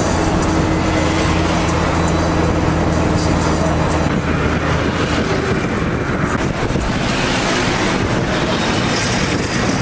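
A vehicle's engine and road noise heard from inside the cabin while driving, a steady low engine drone under the rush of tyres and wind.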